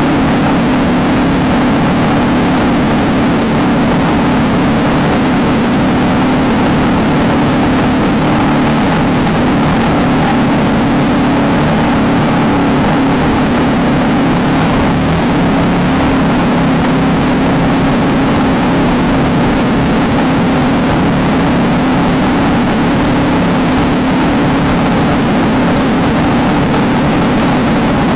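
Off-road race car engine running hard and steady at high revs, with rough-terrain rumble and wind noise under it.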